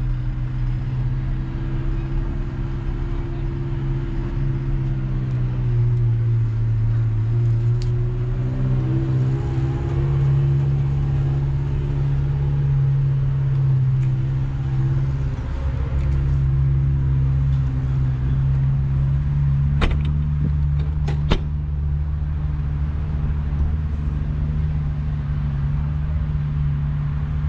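Kubota M7-173 tractor's 6.1-litre four-cylinder diesel engine idling steadily, with a few sharp clicks about twenty seconds in.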